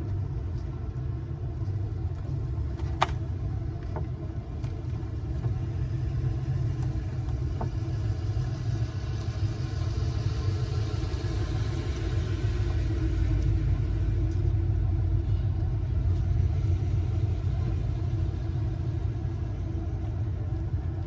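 Steady low rumble of a motor vehicle, growing louder with more hiss through the middle, as a vehicle passes or draws near. A single sharp click about three seconds in.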